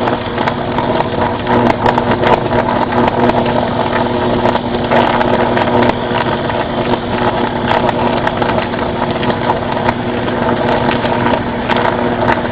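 Electrical transformer arcing and burning: a loud, steady electrical buzz with irregular crackling and sharp snaps throughout.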